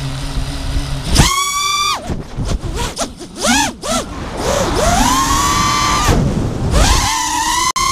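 Brushless motors of a 5-inch FPV racing quadcopter (Lumenier RX2206 2350Kv motors on KISS 24A ESCs) whining on board. A low hum gives way about a second in to a sharp jump in pitch as the throttle is punched. The pitch then swoops up and down quickly several times and climbs to a held high whine twice, with a low rumble of wind on the microphone.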